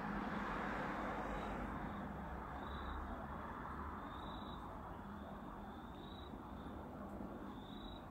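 Bell 412EP twin-turbine helicopter passing at a distance, a steady rotor and turbine noise that slowly fades as it flies away. A short high chirp repeats about every second and a half over it.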